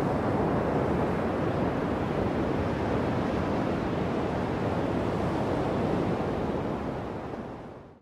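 Ocean surf breaking on a sandy beach: a steady rush of water noise that fades out over the last second or so.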